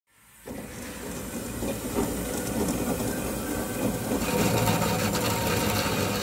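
Metal-cutting band saw blade cutting through a rectangular steel tube: a steady grinding, hissing machine noise that fades in over the first half second.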